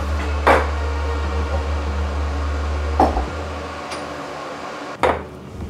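Electric coffee machine humming steadily, stopping about three seconds in, with three short knocks.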